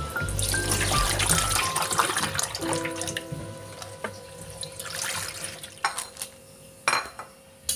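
Tap water running and splashing as water spinach leaves are swished and rinsed by hand in a plastic bowl in a steel sink, under light background music. The water noise fades out partway through, and two sharp knocks follow near the end.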